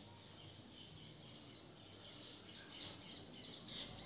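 Quiet background with faint high-pitched chirping over a steady high hiss, and a couple of soft clicks about three and four seconds in.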